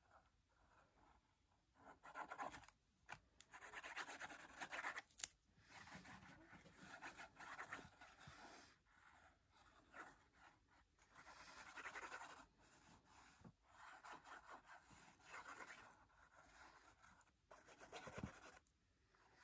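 Tombow liquid glue bottle's applicator tip rubbed over cardstock in repeated strokes: a faint scratchy rubbing that comes in bouts of one to two seconds, starting about two seconds in.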